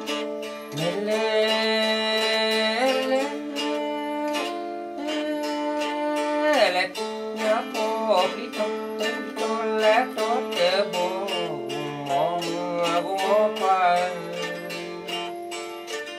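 Karen folk song: a man sings over a steadily plucked string instrument, with a held drone note underneath.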